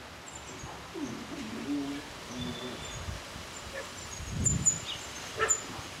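Wild birds calling: a few low, wavering notes about a second in, with short high chirps throughout and a sharp click near the end.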